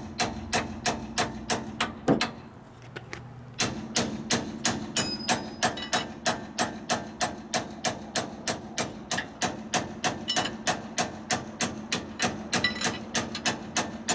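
Rapid, steady hammer blows on the steel steering knuckle of a Dana 44 front axle, about three a second with a ringing note under them, to break the ball-joint tapers loose. One heavy blow about two seconds in, then a short pause before the hammering resumes.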